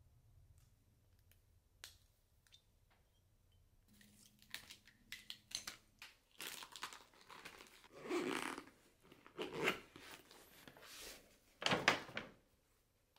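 Faint clicks, then rustling and crinkling of plastic and paper as small items are packed into a suitcase. The loudest is a burst of paper rustling near the end, as packs of socks are handled in a brown paper bag.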